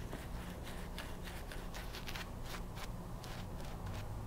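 Soluna safety razor, fitted with a KAI blade, cutting stubble in quick short strokes, a few a second, each a brief dry rasp, over shaving lather that is running low on moisture.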